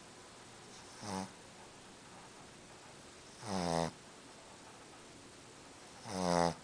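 Boston Terrier snoring in its sleep: three rasping snores about 2.5 seconds apart, each louder than the one before, the snoring typical of a short-nosed breed.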